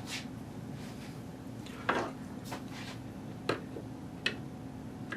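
Four or five light clicks and taps of small hard plastic parts being handled, as the router's switch is worked out of its housing, over a faint low steady hum.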